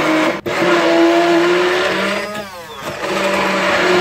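Electric hand blender motor running with a steady whine, puréeing chopped tomatoes and coriander in a plastic jug. It breaks off for an instant just under half a second in, and about halfway through it winds down and speeds back up.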